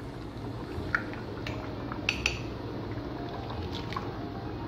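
Thick coconut milk pouring from a steel cup into a pot of fish curry, with a spoon clinking and scraping against the cup a few times.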